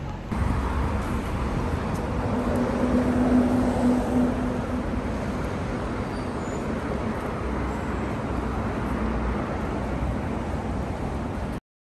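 City street traffic: a steady rumble of cars passing, with one vehicle's engine hum rising about three seconds in and fading a couple of seconds later. It cuts off abruptly near the end.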